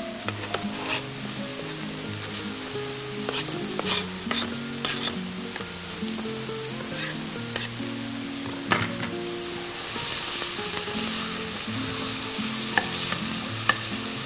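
Chopped onion sizzling in hot oil in a steel pot, stirred with a wooden spoon, with a few sharp knife-and-board taps. The sizzle grows louder about ten seconds in.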